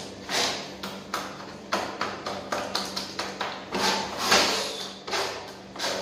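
White cement being mixed by bare hand on a plastic sheet: irregular scraping, swishing and tapping as the hand works the wet paste against the plastic on the floor.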